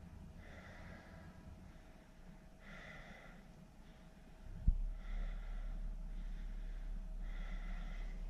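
Noisy, hissing breaths, four of them, one about every two and a half seconds: a breathing problem. About halfway through comes a single sharp knock, and a low steady hum follows it.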